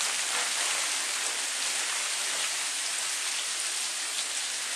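Small hail and ice pellets falling and pattering on surfaces in a steady, dense hiss with fine ticks.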